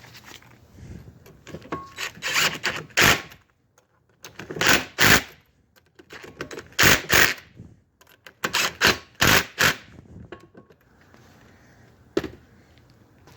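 Mounting bolts being run in with a tool, in several short bursts of rapid clicking with pauses between them.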